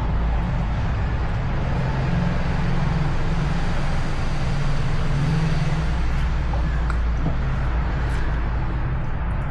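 A steady low rumble with an even hiss above it, and a few faint clicks in the second half.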